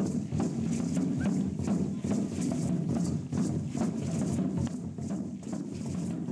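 Dancers' hand-held rattles and a drum keeping a steady dance rhythm of sharp, evenly spaced strokes, about two to three a second.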